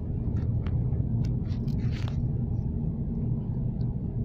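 Steady low rumble of a running vehicle, with a few faint short clicks over it.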